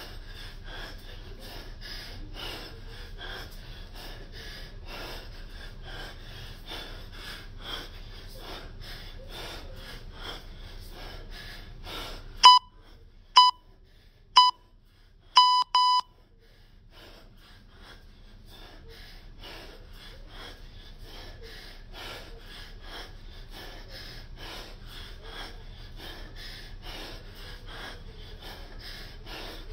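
A man breathing hard and rapidly through kettlebell snatches. About halfway through, the breathing drops out under a timer's countdown: three short beeps about a second apart, then a longer final beep.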